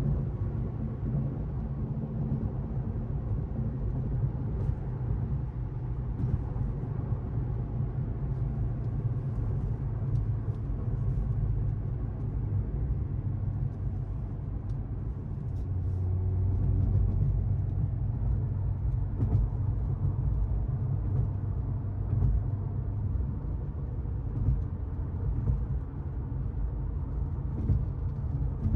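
2023 Mercedes-AMG C43's turbocharged four-cylinder engine and tyre noise while driving, a steady low rumble that swells louder for a few seconds just past the middle.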